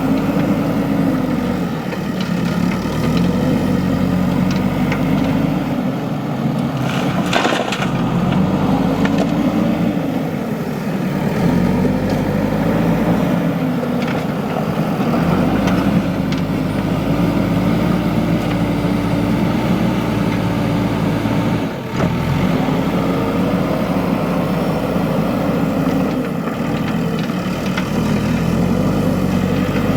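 JCB 3DX backhoe loader's diesel engine working under hydraulic load, its pitch rising and falling over and over as it digs and swings. A sharp knock about seven seconds in.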